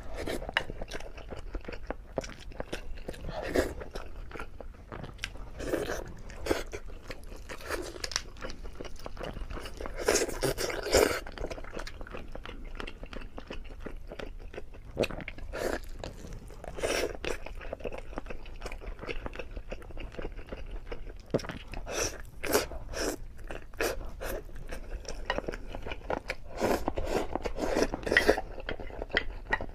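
Close-miked eating sounds of a person chewing mouthfuls of rice and braised chicken: irregular crunches and wet chewing, with bites spread unevenly throughout.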